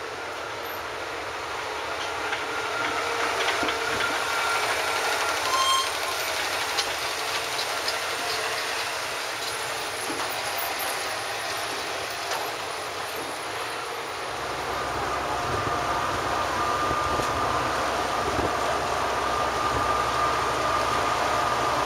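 Steady mechanical running noise of a ferry's engines. A deeper low rumble comes in about two-thirds of the way through.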